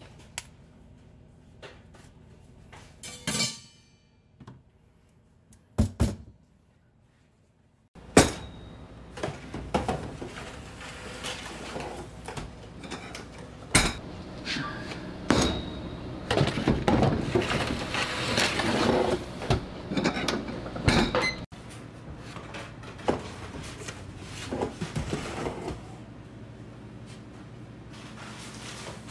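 Commercial bakery clatter: metal trays and utensils knocking and clinking against steel. It is sparse at first, then about eight seconds in it becomes busier with repeated sharp knocks over a steady low hum.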